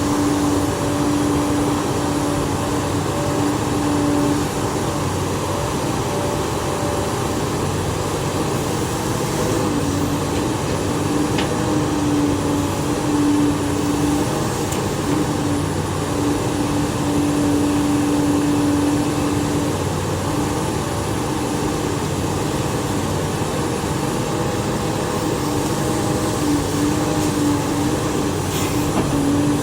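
XCMG XE370CA hydraulic excavator running steadily at a constant speed, with a steady hum that fades out and returns several times.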